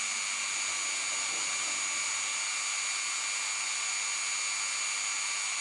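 Dremel rotary tool running at about 15,000 RPM, its 60° V-bit milling a thread into aluminium bar: a steady high-pitched whine with cutting noise.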